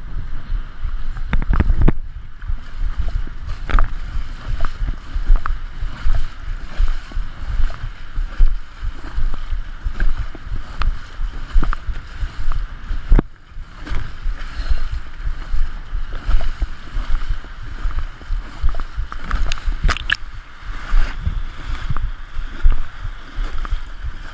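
Water rushing and splashing past an International Moth sailing dinghy, with heavy wind buffeting on the microphone and a sharp knock about halfway through.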